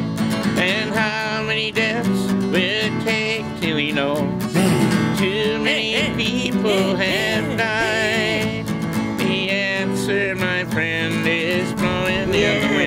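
Country-style music with acoustic guitar and a wavering lead melody line.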